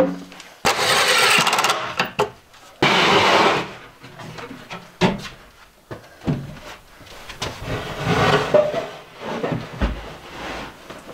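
Cordless drill driving screws into plywood, running in two bursts over the first four seconds, followed by scattered knocks and scrapes of plywood panels being handled and set in place.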